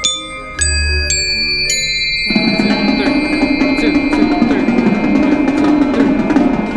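Glockenspiel notes struck one at a time with mallets, each ringing on. About two seconds in, the full drumline and front ensemble enter together: busy drum and mallet percussion over a steady low held tone.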